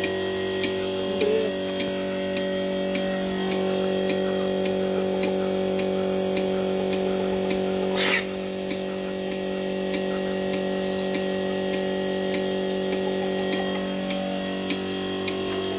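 Portable milking machine running steadily during milking: the electric vacuum pump gives a constant hum, with a regular light ticking from the pulsator and a single sharp click about halfway through.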